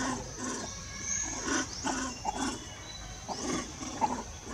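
Monkeys giving short calls, about two a second, with high, rising chirps behind them.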